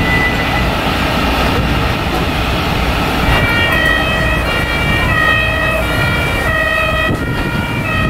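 German two-tone emergency-vehicle siren (Martinshorn) coming in about three seconds in and alternating repeatedly between a high and a low tone, over a steady rumble of engine and street noise.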